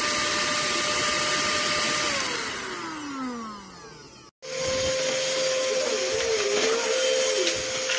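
Cordless handheld mini vacuum cleaner running with a steady motor whine and rush of air, switched off about two seconds in and winding down with falling pitch. After an abrupt cut near the middle it is running steadily again.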